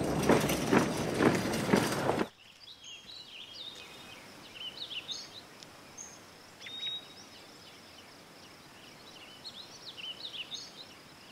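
Marching boots of a file of soldiers, a crunching step about twice a second, stopping abruptly about two seconds in. After that, faint chirps of small birds over a quiet outdoor hiss.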